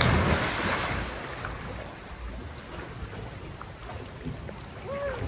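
Two people jumping together feet-first into the sea: a loud splash as they hit the water, fading over about a second into a steady wash of water noise as they swim.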